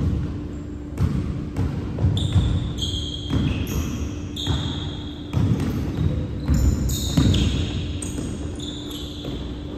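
Basketball being dribbled on a hardwood gym floor, its thumps echoing in the large hall, with many short high squeaks of sneakers on the court. A steady low hum runs underneath.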